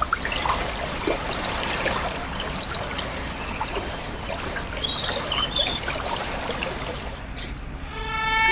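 River water flowing and rushing, a steady even wash of sound with short high chirps scattered over it. Music begins near the end.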